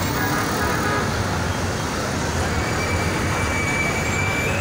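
Steady road traffic noise as a motor tricycle and then a minibus drive past, engines running.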